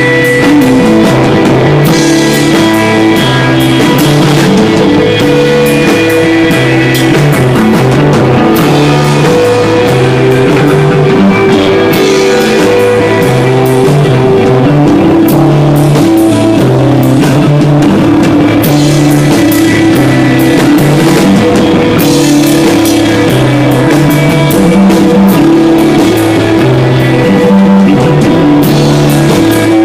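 Live desert rock band playing loud amplified music: electric guitar over a repeating bass line, with a drum kit keeping the beat.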